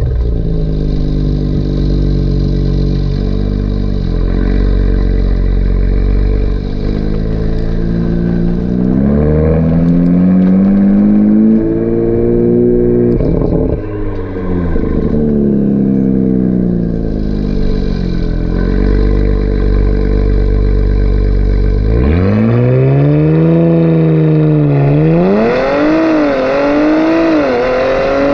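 Audi B9 RS4's twin-turbo V6 heard at the tailpipe through a Milltek non-resonated sports exhaust. Revs fall to a steady idle, rise and fall slowly, then the car accelerates away, with revs climbing and briefly dipping a few times near the end.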